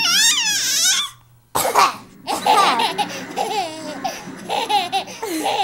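A baby laughing in high-pitched squeals, then a woman's short cough about a second and a half in, followed by more bursts of the baby's laughter.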